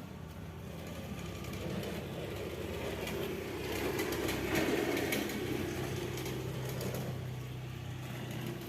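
A motor vehicle passing by, its engine sound growing to a peak about halfway through and then fading.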